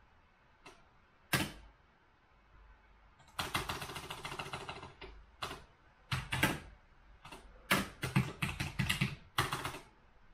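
Typing on a computer keyboard: a few single key clicks, then a quick dense run of keystrokes about three and a half seconds in, followed by short bursts of typing.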